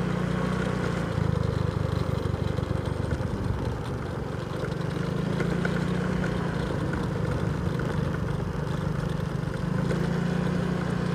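Motorcycle engine running as the bike rides along a narrow road, with road and wind noise. The engine note drops about a second in and picks up again around five seconds in.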